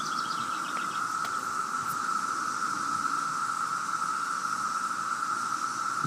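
A massed chorus of periodical cicadas, a constant siren-like drone holding one steady pitch.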